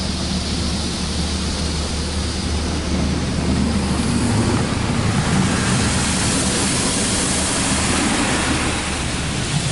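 Belanger Saber SL1 automatic car wash washing over the car, heard from inside the cabin: a steady rush of water spray with a low hum underneath, the rush growing louder about four seconds in.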